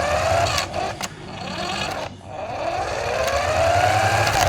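RC car's motor whining, rising in pitch as it speeds up: a short run at the start, then a longer climb from about two seconds in.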